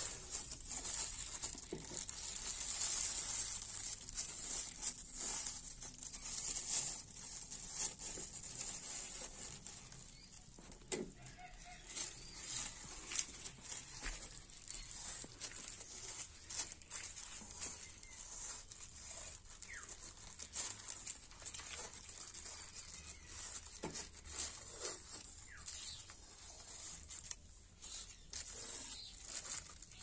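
Thin plastic bag crinkling and adhesive tape being pulled and torn off its roll, in an irregular run of short rustles and rips.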